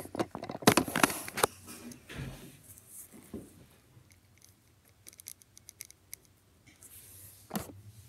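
Lined paper being handled and rustled on a table, then faint small scratching ticks of a pen drawing on the paper, and a single knock near the end.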